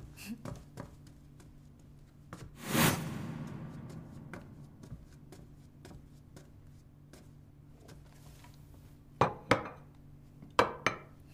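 Crockery set down on a table: a few sharp clunks of plates and a bowl on the tabletop near the end. Before that, about three seconds in, comes a louder rushing noise that fades out over a second or so.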